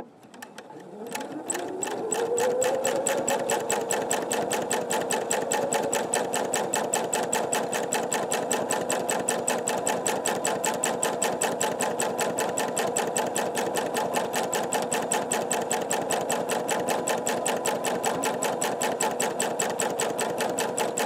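Sewing machine stitching free-motion quilting. The motor winds up over the first couple of seconds, then runs at a steady high speed with a rapid, even needle rattle, and stops just before the end.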